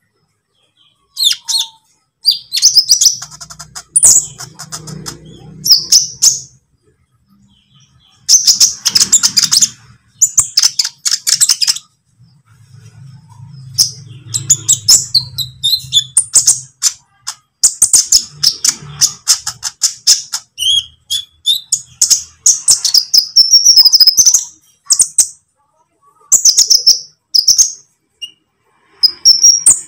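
Young olive-backed sunbird twittering: rapid, high-pitched chirps and trills in short bursts separated by brief pauses.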